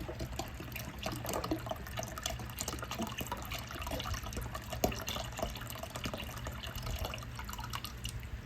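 Chicken broth being poured into a pot of water: liquid splashing, with many small drips and splashes throughout, easing off near the end.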